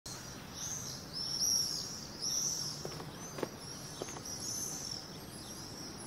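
Common swifts screaming: a string of shrill, high calls, roughly one or two a second, over a steady low background hiss.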